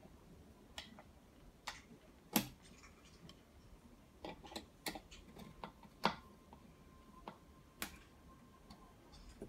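Small metal screws and a thin metal tool clicking and tapping against the metal fittings and board of a flat-pack wooden monitor riser during hand assembly: about a dozen irregular sharp clicks, the loudest about two and a half seconds in, with a quick cluster a little past the middle.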